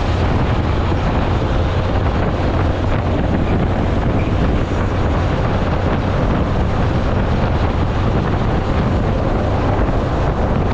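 Bus under way: a steady, loud rumble of engine and road noise with a rush of wind, unchanging throughout.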